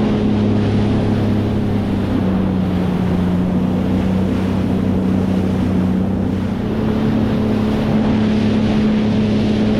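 Sea-Doo personal watercraft engine running steadily at cruising speed, with wind noise on the microphone and rushing water.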